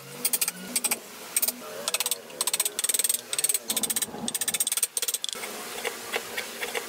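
Hand gouge and chisel cutting and scraping wood, a rapid series of short, sharp strokes as chips are pared out of a carved recess.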